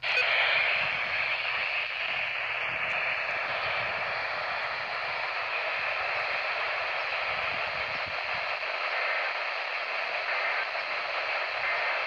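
Midland handheld weather radio's speaker hissing with steady static, the station barely received through a weak signal. The hiss starts abruptly and stays even.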